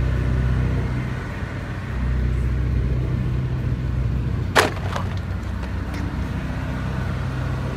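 Steady low truck-engine rumble, with a single sharp click about four and a half seconds in.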